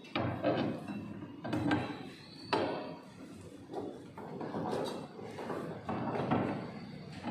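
Handling clatter of long metal rods and hollow black plastic debris-chute drums being shifted and fitted together: several sharp knocks, about one every second or so, with scraping and rubbing between them.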